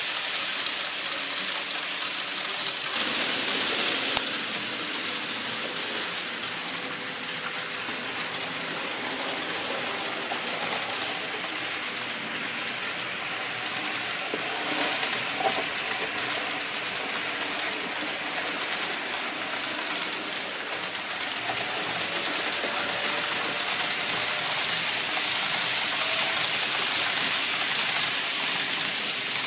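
Model trains rolling along the track: a steady rush of small metal wheels on rails. Two sharp clicks stand out, about four seconds in and again about fifteen seconds in.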